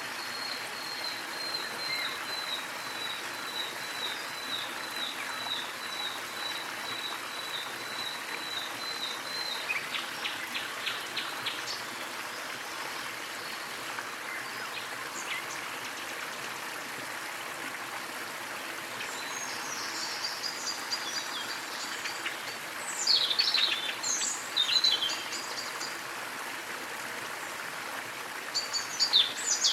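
Small waterfall running steadily, with birdsong over it. A bird gives a long run of evenly repeated high notes, slowly falling in pitch, for the first ten seconds or so. Louder chirping calls follow from about twenty seconds in and again near the end.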